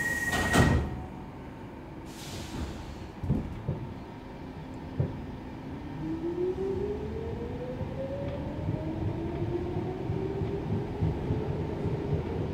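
Stockholm Metro C14 train pulling away from a platform. The doors close with a loud thud about half a second in, followed by a few knocks as it starts. From about halfway through, the traction motors' whine rises steadily in pitch over the running rumble as the train accelerates.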